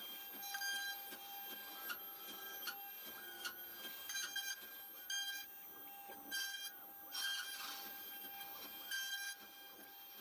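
Four-axis CNC router milling a wooden violin neck: a steady whine from the spindle, with the axis motors' whine stepping to new pitches every second or so as the toolpath changes direction, and scattered clicks from the cutting.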